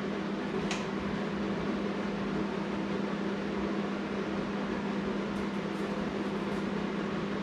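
Steady electric hum of a kitchen appliance fan running, with a low even drone, and one light click under a second in.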